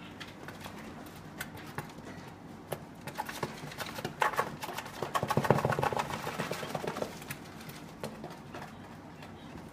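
Two quail dust bathing in a cardboard box of dust: wings fluttering and bodies scratching and rustling in the dust. A loud flurry of rapid fluttering about four seconds in lasts some three seconds, with lighter scattered scratches before and after.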